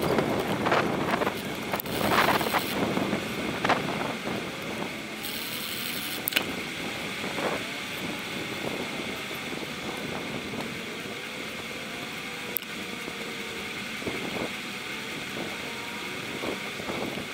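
Wind rushing over the microphone of a camera on a moving bicycle, with steady tyre and road noise from riding on tarmac. A couple of sharp clicks sound about six seconds in and again about twelve seconds in.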